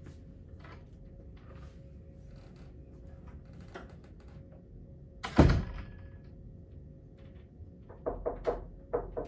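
A door thudding shut about five seconds in, then a quick run of light taps near the end, over low room noise.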